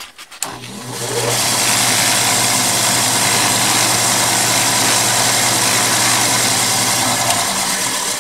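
Drill press motor starting up and running steadily, spinning a wooden ring on a mandrel while 1000-grit automotive sandpaper is held against it: a steady hum under a loud hiss of sanding. The hum cuts out near the end and the hiss dies away.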